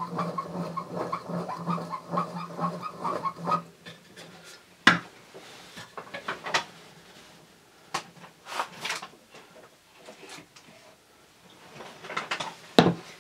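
Hand-cranked wooden automaton's crank and cam mechanism turning with a rapid, even clicking over a low steady hum, stopping about three and a half seconds in. After that come scattered single knocks and clicks of wood being handled.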